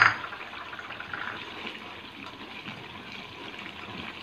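A sharp knock right at the start, then a watery masala gravy simmering and bubbling steadily in an aluminium pot.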